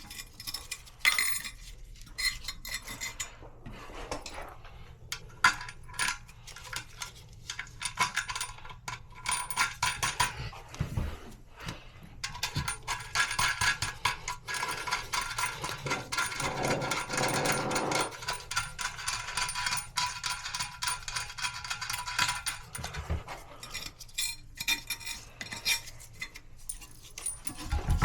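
Irregular clicks and clinks of hard plastic and metal parts being handled while working on a toilet's flush valve, with a denser stretch of rattling and scraping in the middle and a couple of dull knocks.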